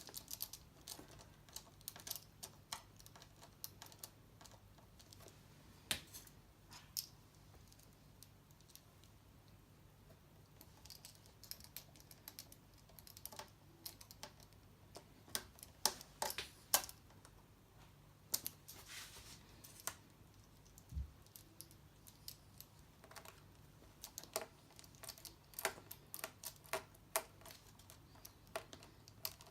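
Small, irregular clicks and taps of a screwdriver and screws being worked into the mounting holes of a replacement laptop screen panel, with the light plastic laptop lid being handled.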